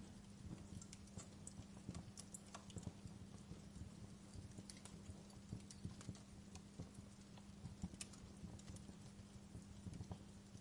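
Fire crackling in a fireplace: faint, irregular pops and snaps over a steady low hum.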